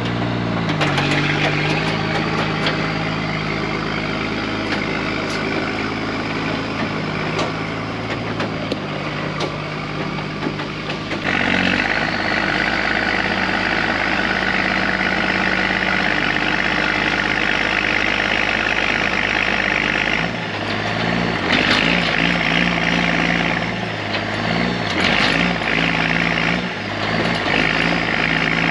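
Heavy truck's engine running under load as the truck drives forward pulling a towed truck on a chain. Its pitch rises in the first second, then holds steady. Partway through, a louder, higher-pitched noise joins the engine and later comes and goes.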